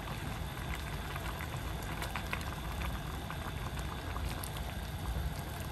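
Pot of watercress soup at a rolling boil: water bubbling steadily, with many small irregular pops.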